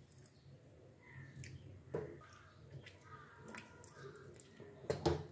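A person gagging and retching during voluntarily induced vomiting of drunk salt water (kunjal kriya): faint gagging noises, a sharp sound about two seconds in, and a louder retch near the end.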